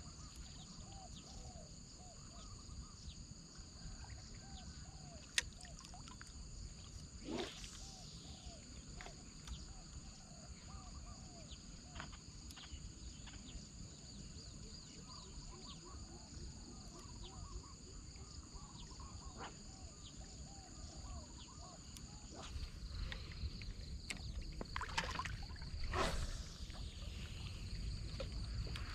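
Outdoor insect chorus: steady high-pitched trilling at two pitches, with many short repeated chirping calls lower down and a few sharp clicks. A low rumble grows louder about two thirds of the way in.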